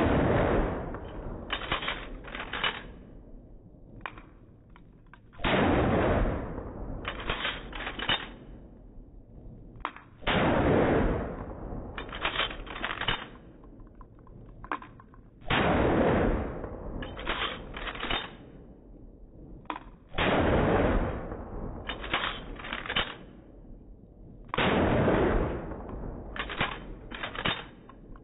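Six 12-gauge slug shots from a Remington pump-action shotgun, heard slowed down: a long, drawn-out blast about every five seconds, each followed by two or three sharp clacks as the pump is worked.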